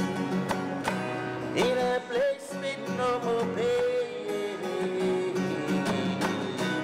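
A man singing long held notes that slide between pitches, over a strummed acoustic guitar.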